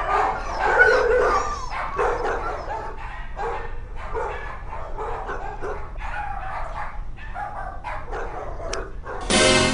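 Several dogs barking and yapping in shelter kennels, many short barks overlapping. Music comes in suddenly just before the end.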